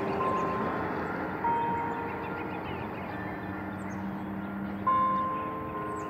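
Church bells ringing: separate strokes a few seconds apart on notes of different pitch, each ringing on and slowly fading, over a steady background rumble.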